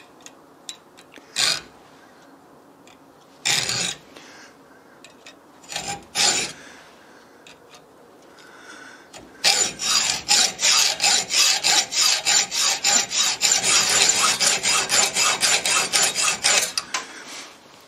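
Hand hacksaw cutting through a steel lathe parting blade. A few separate scrapes come first, then from about halfway in the saw runs in rapid, even back-and-forth strokes until shortly before the end.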